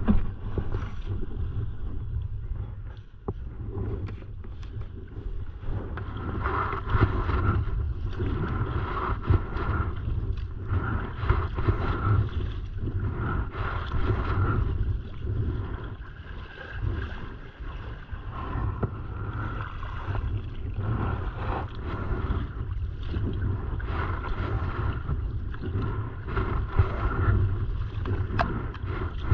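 Kayak paddle strokes, the blades dipping and splashing into lake chop about once a second, with water lapping at the hull. Under it runs a steady low rumble of wind on the microphone.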